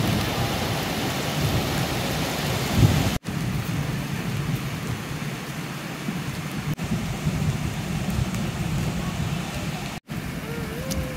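Heavy rain pouring in a storm: a steady hiss with a low rumble underneath. It cuts out for an instant twice.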